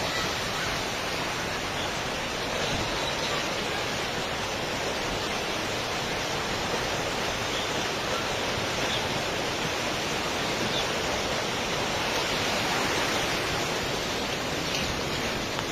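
Floodwater from a cloudburst rushing in a steady, continuous torrent.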